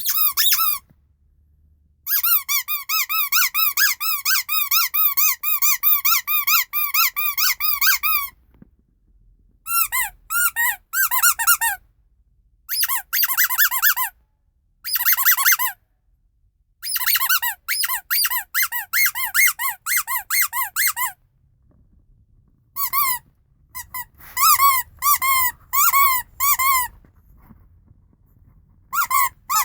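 Rubber squeaky toy squeezed over and over, in several quick runs of about four squeaks a second with short pauses between. Each squeak is a short whistle that rises and falls in pitch.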